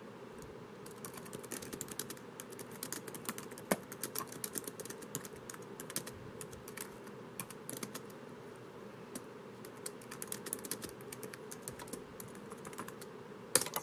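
Typing on a laptop keyboard: rapid, irregular key clicks with brief pauses, a few louder strokes, one near the end.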